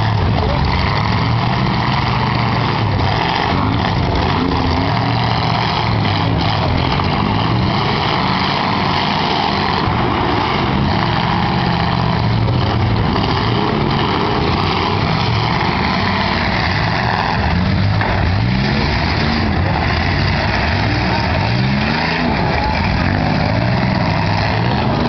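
Several demolition-derby V8 car engines running together at once, revving up and down, with a pitch that rises and falls repeatedly in the last several seconds, over a dense wash of engine and exhaust noise. A few short knocks of car bodies colliding come through now and then.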